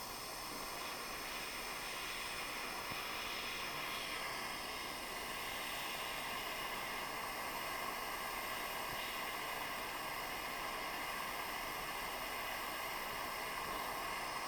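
Soldering torch flame hissing steadily while it heats a brass ring joint.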